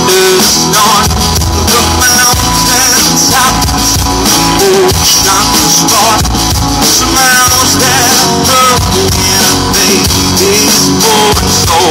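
Live rock band playing loudly: amplified guitars over a drum kit, with no break.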